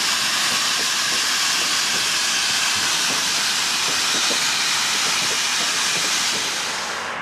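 Steam locomotive venting steam: a loud, steady hiss that drops away suddenly near the end.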